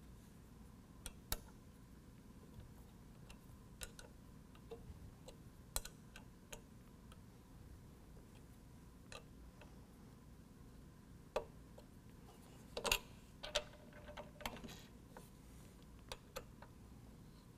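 Scattered light metallic clicks and taps of an Allen wrench and a socket ratchet on the bolts of a tube door's mirror mount as the hardware is tightened, irregular rather than a steady ratchet rhythm, with the loudest cluster about three-quarters of the way through.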